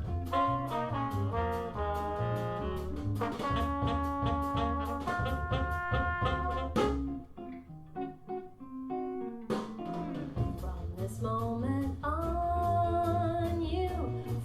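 Jazz music with brass and saxophone over a stepping bass line, played through Monitor Audio Bronze 2 bookshelf speakers. The bass drops out and the music goes quieter for a couple of seconds about halfway, then comes back in full.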